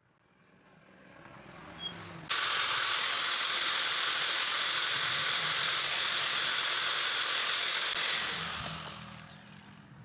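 Small hand-held angle grinder running: a harsh, steady hiss that starts abruptly about two seconds in, holds for about six seconds, then fades away near the end.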